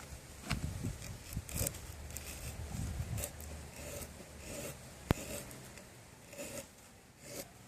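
Bushcraft knife blade shaving a wooden stick: irregular scraping strokes of steel across wood, with one sharp click about five seconds in.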